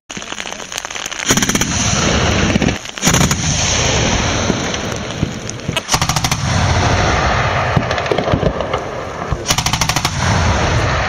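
Twin-barrelled 23 mm anti-aircraft cannon (ZU-23-2) firing four short bursts of rapid automatic fire, each a quick string of shots, with a steady loud rushing noise between the bursts.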